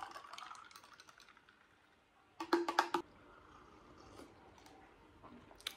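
Iced coffee poured from a bottle into a glass, then a short clatter of knocks and clinks about two and a half seconds in, followed by faint sips and ticks as it is drunk.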